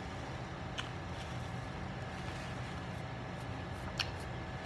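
Steady low background hum, with two brief sharp clicks, one about a second in and one near the end.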